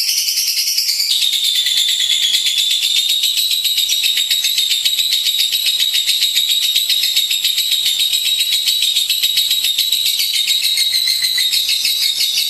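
Lovebird singing one long, unbroken, very rapid high-pitched trill. This is the drawn-out chattering song that Indonesian bird keepers call ngekek. The pitch steps down slightly about a second in.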